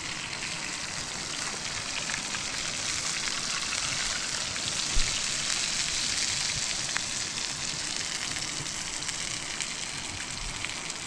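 Batter frying in oil in a pan over a wood fire: a steady sizzling hiss that swells a little around the middle, with one short knock about five seconds in.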